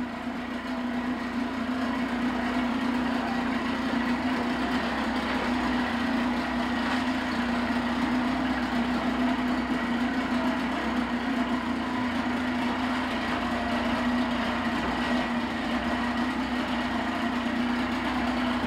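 Motorboat engine running steadily, a constant hum that grows a little louder over the first couple of seconds.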